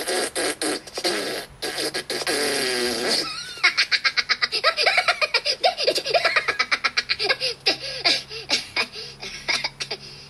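Cartoon Minion characters laughing and giggling in their high, squeaky voices, the soundtrack of the clip playing on the smartphone. A drawn-out wavering call gives way, about three and a half seconds in, to a long run of fast giggles.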